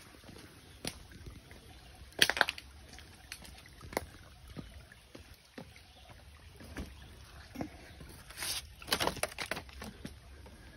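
Footsteps crunching and clacking on loose shale and stones, uneven, with the loudest bursts about two seconds in and again near the end, over the faint trickle of a shallow stream.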